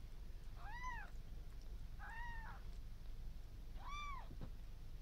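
Newborn kitten mewing three times: short, high cries that rise and fall in pitch, about a second and a half apart.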